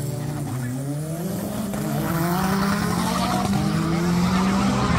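Drag racing car's engine revving, its pitch climbing steadily over several seconds and getting gradually louder.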